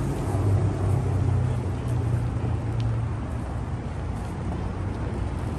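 City street traffic, with the low hum of a nearby vehicle engine that fades after about three seconds.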